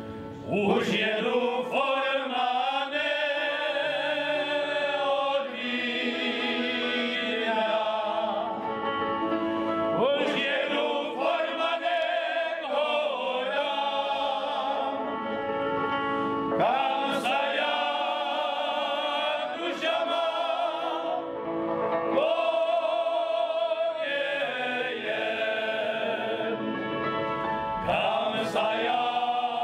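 Male folk choir singing a Moravian folk song, phrase after phrase with short breaths between.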